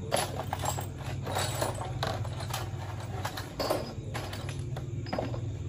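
Irregular metallic clinks and knocks, like parts or tools being handled, over a steady low hum.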